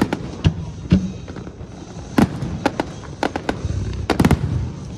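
Aerial fireworks bursting: a string of sharp bangs with some deeper booms, and a rapid cluster of reports about four seconds in.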